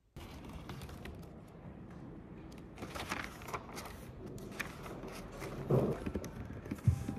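Loose sheets of paper being leafed through and handled on a wooden table, in irregular rustles over a steady hiss of room noise, with a louder shuffle near 6 s and a short thump just before the end.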